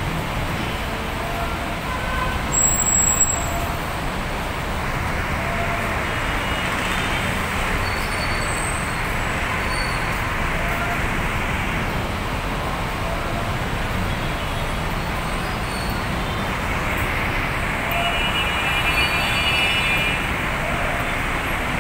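Steady heavy road traffic: engines of buses, trucks, cars and motorcycles running and moving through a busy intersection. It swells briefly about two and a half seconds in, with a short high-pitched tone near the end.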